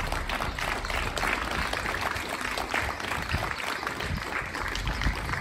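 A small audience clapping, a dense patter of many hands that keeps up steadily.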